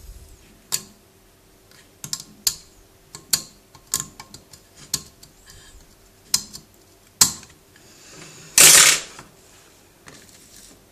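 Irregular sharp clicks and taps of a metal hand tool and a soldering iron tip against the circuit board and aluminium chassis of a CB amplifier being soldered. About two-thirds of the way through comes a louder rush of noise lasting about half a second, with a faint steady hum underneath.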